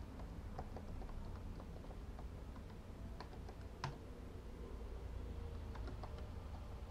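Typing on a computer keyboard: irregular key clicks, with one sharper, louder keystroke about four seconds in.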